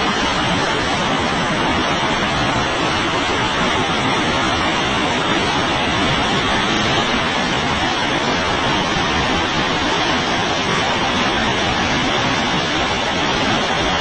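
A large waterfall with a heavy flow of muddy water pouring over a rock ledge into a misty plunge pool. It makes a loud, steady rush of falling water.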